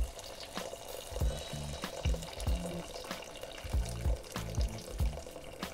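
Hot cooking water poured off boiled sweet potato cubes from one stainless steel pot into another, a steady splashing trickle. Background music with a steady bass beat plays over it.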